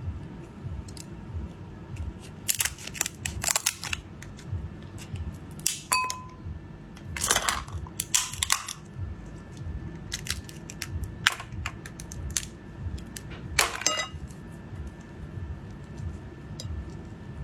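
Eating king crab: a series of sharp cracks and crunches as the shell is broken, with quieter chewing between them.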